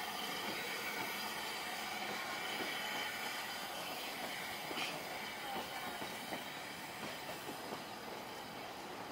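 Narrow-gauge steam train passing and pulling away round a curve: steam hissing and the carriage wheels clicking over rail joints, the clicks coming more often in the second half as the sound slowly fades.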